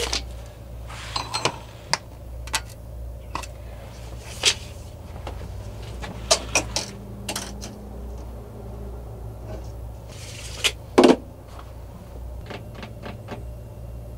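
Scattered clicks and knocks of a steel tape measure being pulled out and handled against a mini fridge and wooden cabinet opening, with one louder knock that rings briefly about eleven seconds in.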